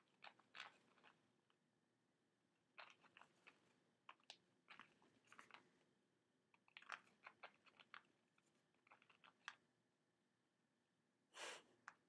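Faint scratchy clicks and crackles in short clusters, with a longer rustle near the end: a small pet bird's claws and beak gripping fabric drapes as it climbs them.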